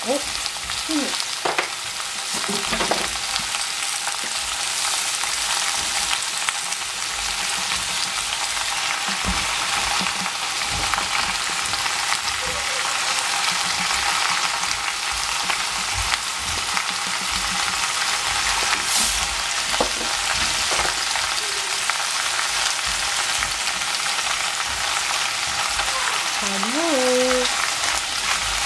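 Squash and shiitake mushroom pieces frying in a stainless steel saucepan, a steady sizzle.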